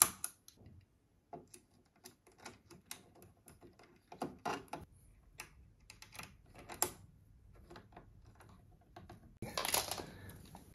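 Irregular light clicks and ticks from hands handling a bundle of thin wires and a plastic mains inlet bracket, with a sharp click at the start and a denser rustle of the wires near the end.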